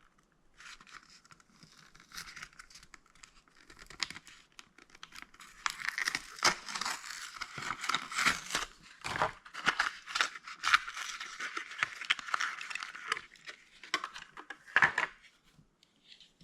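Die-cast toy car's cardboard-and-plastic packaging being torn and crinkled open, with scattered sharp clicks. The rustling is heaviest through the middle stretch.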